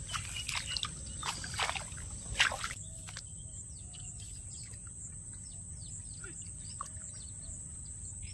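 Small birds chirping in short falling notes over a steady high insect drone, with a run of rustling and knocking handling noises in the first three seconds.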